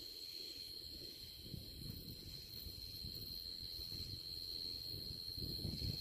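Insects trilling steadily at night, one unbroken high-pitched note, over a low rumble of handling noise from the handheld camera.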